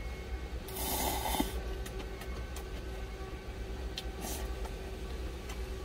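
Slurping up instant cup udon noodles: one long slurp about a second in and a shorter one around four seconds in, over a steady low hum.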